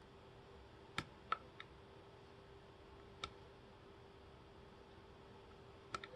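Small, sharp metallic clicks of a lock pick and tension wrench working the spool-pinned pin stack of a Master padlock during single-pin picking: three clicks about a second in, one past the middle, and two close together near the end.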